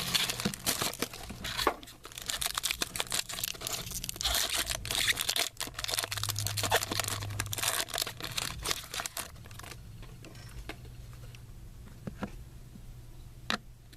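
Trading card pack wrappers being torn open and crinkled while the cards are handled. The rustling is steady until about two-thirds through, then gives way to a few light clicks.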